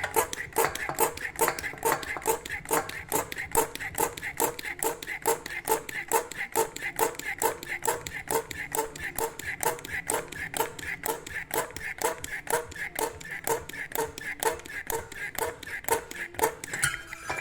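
Hand vacuum pump being worked rapidly, about four strokes a second, drawing a vacuum on the sealed two-stroke engine for a leak test after new gaskets were fitted. The strokes stop shortly before the end.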